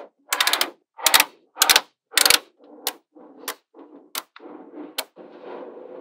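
Small magnetic balls clicking and clattering as they snap together: four quick rattling bursts of sharp clicks in the first half, then softer clinking with single sharp snaps about every half second to second.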